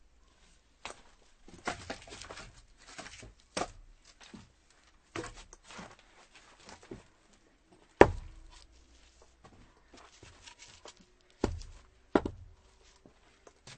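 Axe chopping firewood: one sharp, heavy strike about halfway through and two more close together near the end, with lighter knocks and clatter of wood between.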